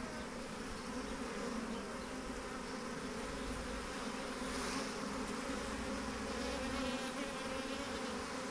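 A swarm of honeybees buzzing close by: a steady, dense hum with no break.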